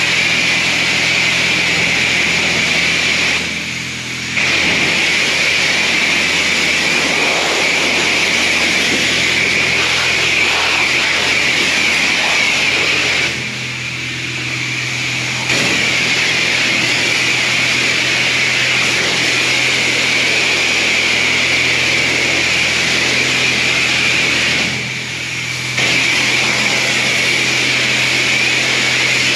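Car wash bay high-pressure spray wand blasting mud off the bay floor: a loud, steady rushing hiss over a constant pump hum. The spray drops away briefly three times, about four seconds in, near the middle and near the end, where the trigger is let off.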